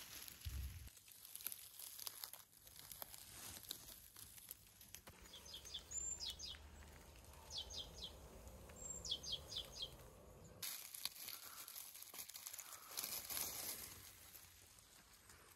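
Grass and dry leaves rustling and crackling as mushrooms are handled and picked from the forest floor, faint and close. In the middle a bird calls in short runs of three or four quick high chirps, several times.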